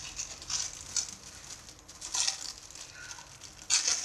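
Plastic packaging crinkling in the hands in short, irregular rustles, the loudest near the end.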